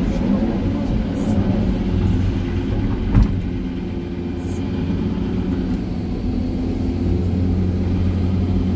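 Hydraulic excavator's diesel engine and hydraulics running steadily while the arm works, heard from inside the operator's cab, with a single sharp knock about three seconds in.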